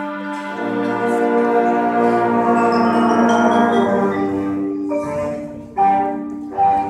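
A school concert band playing live in a gymnasium: held chords that swell about half a second in, then shorter, accented notes near the end.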